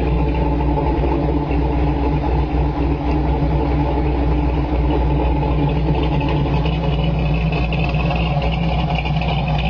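1967 Ford Mustang GT Fastback's V8 engine running steadily at an even pitch, its sound mostly low.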